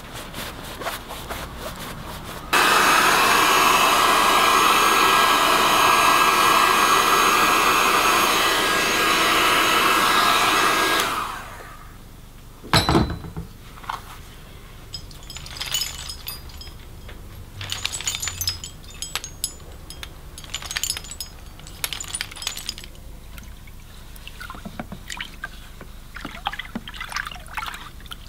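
Electric heat gun blowing hot air with a steady whirring hiss, switched on a few seconds in and cutting off near the middle. A single sharp knock follows, then scattered crackles of paper being handled on the collage.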